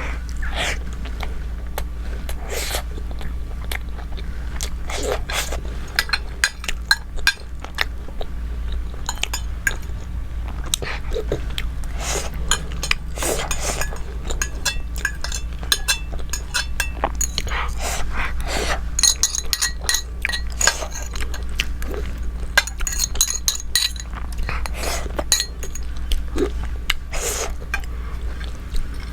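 Close-miked eating sounds: chewing, with cutlery clinking and scraping against a plate in many short, sharp clicks, over a steady low hum.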